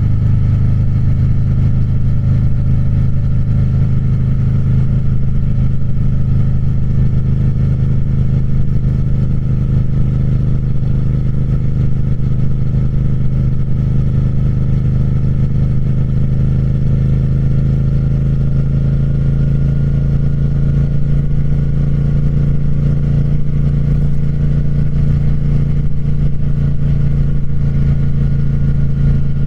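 Triumph Speed Twin's parallel-twin engine running under steady load, its pitch climbing slowly through the second half as the revs build.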